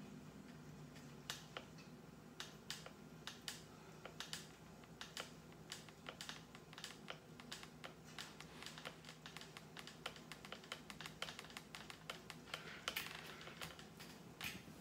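Faint, irregular clicking and tapping, like typing on a computer keyboard, growing quicker and denser in the second half.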